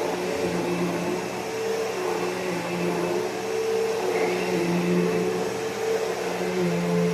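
Bissell PowerForce Bagless Turbo 6596 upright vacuum cleaner running steadily, its 12-amp motor giving a continuous whir and hum of rushing air, the pitch wavering slightly.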